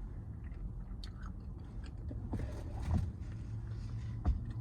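A person chewing food close to the microphone: wet mouth clicks and small crunches, with a sharper click about four seconds in, over a steady low hum.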